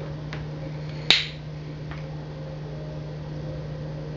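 Cap of a balsamic glaze bottle clicking open: one sharp click about a second in, with a couple of fainter ticks around it, over a steady low hum.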